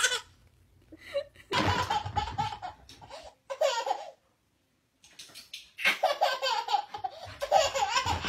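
A baby laughing in bursts of belly laughs, broken off by a second of dead silence about halfway through before the laughing starts again.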